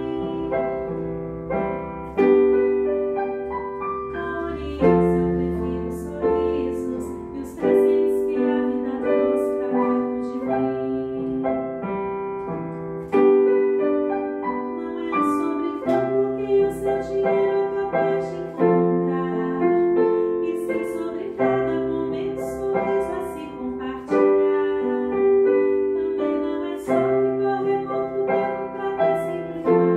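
A woman singing a slow song with piano accompaniment, the piano striking a new chord about every three seconds.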